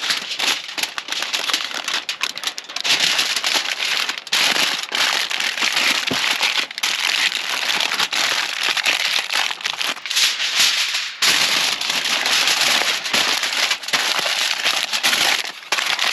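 Aluminium foil being folded and crumpled closely around a trout, a loud, dense crinkling and crackling with many sharp clicks, coming and going with the handling.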